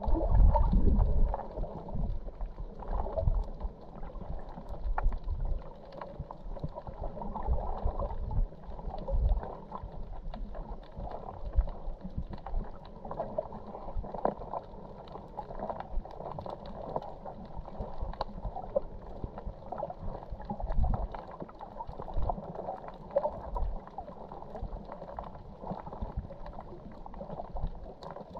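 Muffled underwater sound from a camera held below the surface: low rumbling water movement and gurgling, with scattered small crackles and swells.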